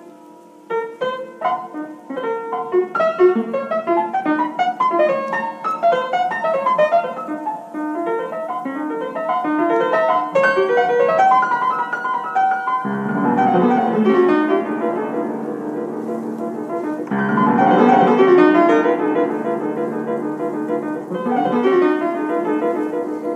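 Out-of-tune upright piano playing quick separate notes, then from about halfway loud, dense chords left ringing, struck again a few seconds later.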